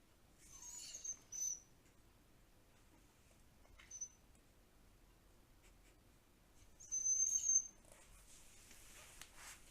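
A dog making strange high-pitched squeaks in short bouts: one about a second in, a brief one near the middle, and the loudest around two-thirds of the way through, followed by a breathy hiss near the end.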